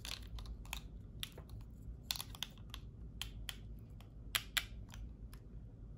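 Plastic lipstick cases clicking and clattering against each other in the hands: a scattering of light, irregular clicks and taps, a few sharper ones about two seconds in and again near four and a half seconds.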